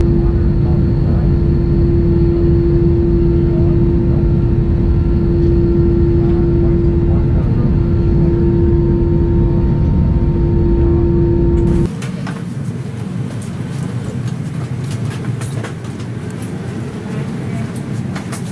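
Airbus A321 cabin noise during taxi: a steady low rumble with a constant hum. About twelve seconds in it cuts off suddenly, giving way to quieter ambience with scattered clicks and knocks.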